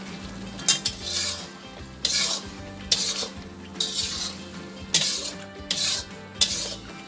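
Metal spatula stirring and scraping mutton and yogurt around a black iron karahi, in short strokes about once a second, over a low sizzle of the curry cooking.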